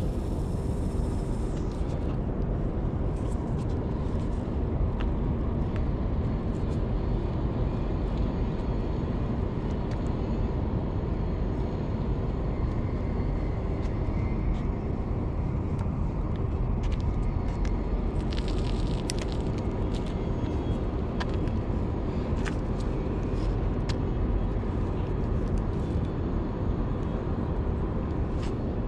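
Wind buffeting the microphone in a steady low rumble, with a few light clicks and taps from handling the fishing rod and reel.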